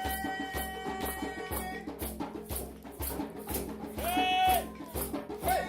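Improvised music: a low pulsing didgeridoo drone under a shaker keeping a beat about twice a second. A long high held note stops about two seconds in, and short rising-and-falling pitched notes come in about four seconds in and again near the end.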